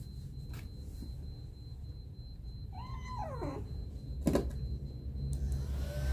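A wet three-month-old kitten, being towel-dried after a bath, meows once about three seconds in, a call that rises and then falls in pitch. A sharp knock follows about a second later. Near the end a small handheld electric fan switches on with a steady whirr.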